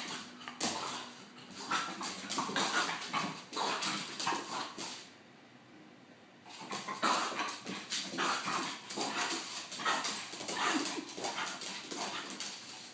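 A French bulldog spinning on a hardwood floor: claws clicking and scrabbling on the boards, mixed with the dog's own whining and grunting. It comes in two bouts with a short lull about five seconds in.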